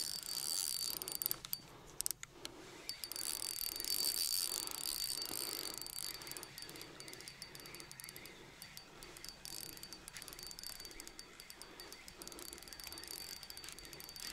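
Spinning reel being cranked, its gears whirring in a rhythmic pulse about one and a half turns a second as a hooked asp is reeled in on thin braided line. Crickets chirp steadily in the background.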